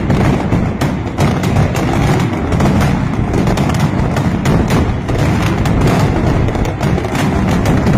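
Mascletà firecrackers (masclets) going off in a dense, continuous barrage, rapid cracks running together over a heavy rumble.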